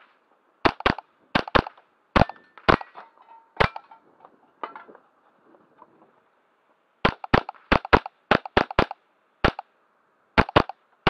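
AR15-22 rifle (AR-15-pattern .22 rimfire) firing a rapid string of about seventeen shots, many in quick pairs, with a pause of about three seconds in the middle. Several shots are followed by the brief ring of steel targets being hit.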